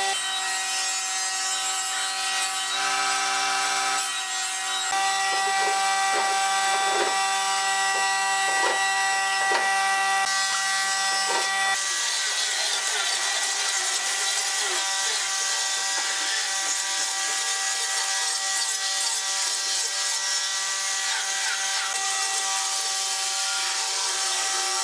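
Corded electric angle grinder with a sanding disc running steadily while sanding pine boards, a constant motor whine with the rasp of the disc rubbing on the wood.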